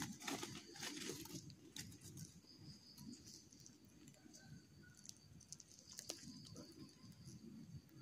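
Faint rustling and crackling of dry bamboo and leaves being handled, with scattered light ticks, busiest in the first second.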